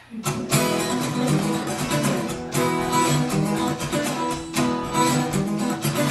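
Acoustic guitar playing a strummed chord intro to a song, starting just after a short pause.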